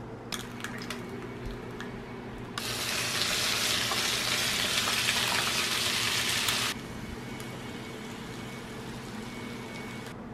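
A few light clicks, then an egg and sliced ham frying in a pan: a loud, steady sizzle for about four seconds that cuts off sharply, followed by a softer sizzle.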